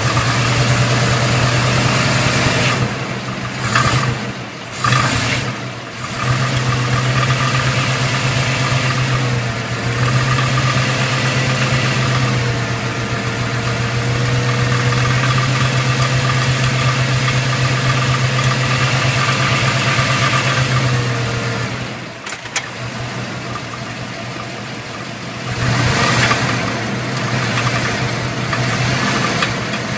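Crate engine with about 2000 miles running, mostly steady with a few brief changes in speed, carrying a rhythmic knock that the owner suspects may be rod knock.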